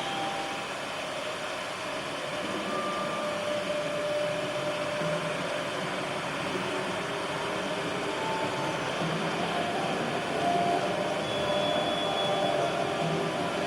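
Improvised experimental music from turntables and drums: a dense, steady rushing noise texture, with short thin tones appearing and fading over it and no clear drum strokes.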